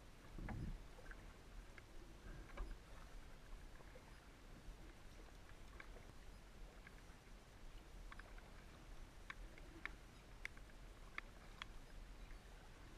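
Faint kayak paddling: the paddle blade dipping and water dripping off it, heard as scattered light ticks over a soft hiss, with a low thump about half a second in. The ticks come more often in the last few seconds.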